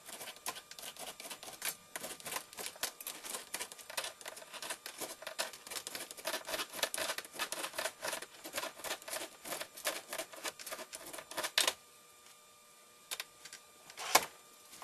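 Rapid, irregular clicking and tapping of small hard objects, several clicks a second, that stops abruptly about twelve seconds in, followed by a couple of isolated clicks.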